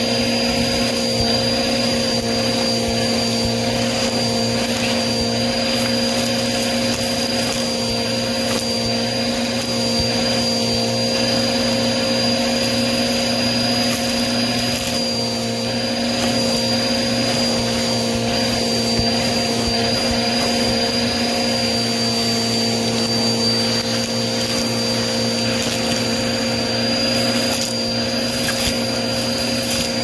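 Vacuum cleaner running steadily: a continuous rush of air with a steady high motor whine.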